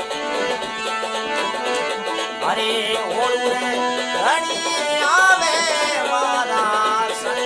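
A man singing a Rajasthani folk devotional song (bhajan) over instrumental accompaniment, drawing out long sliding notes without clear words.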